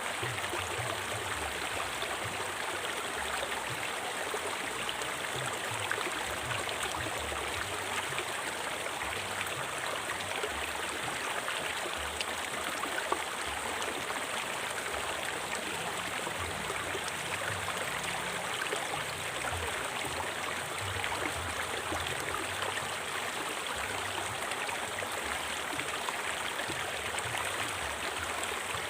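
River water flowing steadily, an even rushing with no breaks.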